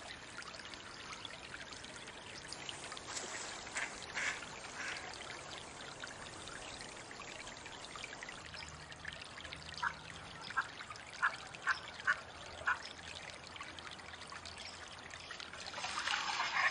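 Steady trickle of running water. About two-thirds of the way through come about six short, soft duck calls, roughly half a second apart. Louder splashing and calling begin near the end.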